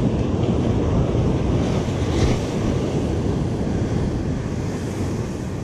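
Surf breaking and washing up the beach, mixed with wind blowing across the microphone as a heavy low rumble.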